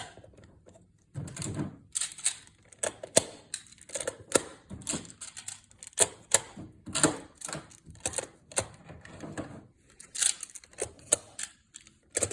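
Magna-Tiles plastic magnetic tiles clicking and clacking as square tiles snap together edge to edge. The clicks come in an irregular run, several a second, with a few short clattering rattles.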